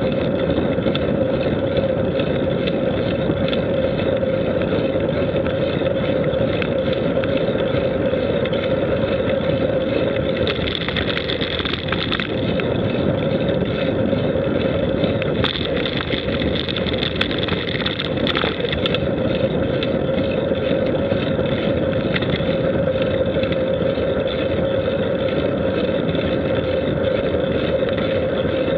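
Steady drone of a vehicle moving along a paved road, with a few short crackles through the middle.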